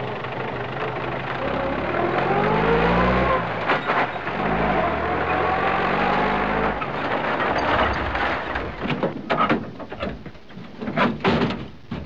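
Road traffic: the steady noise of passing cars, with an engine rising in pitch twice as a vehicle accelerates. In the last few seconds comes a run of sharp knocks and clatter.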